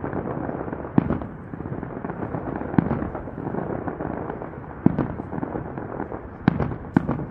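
Aerial firework shells bursting: five sharp bangs spaced irregularly, the last two close together near the end, over a steady noisy background.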